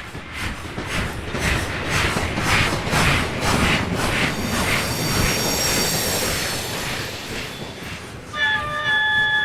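Steam locomotive passing close by, its exhaust beating about twice a second, then a high squeal. About eight seconds in, a multi-note chime whistle sounds and is held.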